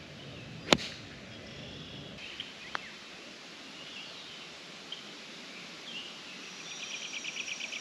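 A golf club strikes the ball once with a sharp crack under a second in. Around it is quiet outdoor ambience with a few faint bird chirps, and a rapid trilling call of about ten short notes a second comes in near the end.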